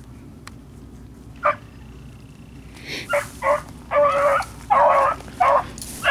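A pack of beagles baying on a trail: one short bark, then from about halfway a quick run of loud barks mixed with longer drawn-out bawls.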